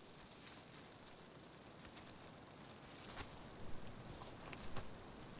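Steady high-pitched insect chirring, a continuous even band of sound, with a few faint ticks in the second half.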